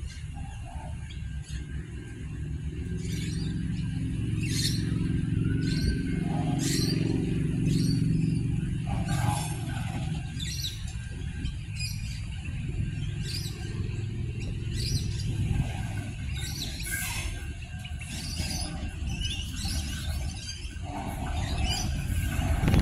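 Birds chirping repeatedly over the low running drone of an approaching 3000/3100 class diesel railcar. The engine hum is strongest through the first half, and the sound grows louder near the end as the train draws close.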